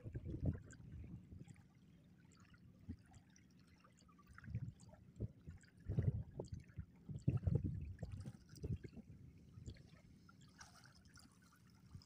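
River water sloshing and splashing around a man wading chest-deep with a bamboo-framed push net, in irregular bursts, with quieter stretches about two to four seconds in and near the end.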